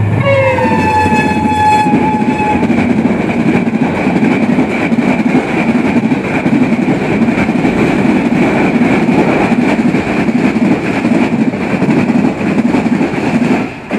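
Pakistan Railways HGMU-30 diesel locomotive sounding its horn as it runs through at speed, the horn's pitch falling as it passes. Then the steady rumble of the express's passenger coaches rushing by on the rails, with a constant high ring over it, until the sound cuts off suddenly near the end.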